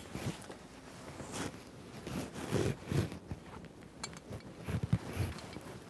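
Props being handled: soft knocks and faint rustling of cloth as a palmistry hand wrapped in a green cloth is lifted and unwrapped, with the loudest knocks about two and a half seconds in and again near the end.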